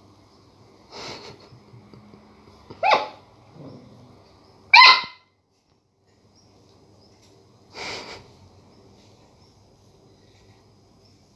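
Border collie puppy barking in a few short, high-pitched yaps, the two loudest about three and five seconds in, with a short breathy puff near eight seconds.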